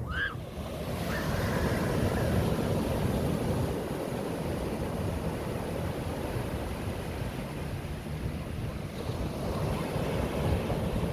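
Sea surf breaking and washing up the beach, the wash swelling a couple of times, with wind buffeting the microphone.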